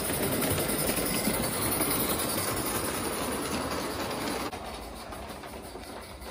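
Aristo-Craft G scale live steam 0-4-0 tank engine running on the track with its train of freight cars, wheels rumbling and clicking over the rails. The sound drops suddenly about four and a half seconds in.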